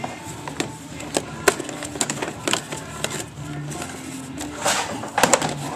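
Sharp metallic clicks and knocks of a pry bar levering snowmobile carburetors loose from their rubber intake insulators, with a brief scrape near the end. Music plays faintly in the background.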